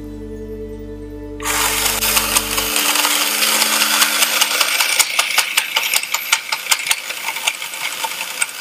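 Small battery toy motor starting about a second and a half in and driving the robot's plastic gear train: a steady whirring with rapid gear clicking, as the newly fitted gear turns.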